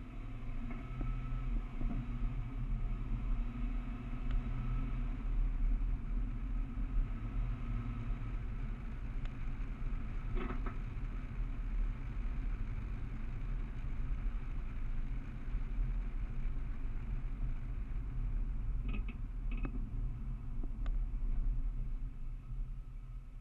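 Steady low rumble of a car being driven, heard from a camera mounted on its hood: engine, tyre and wind noise.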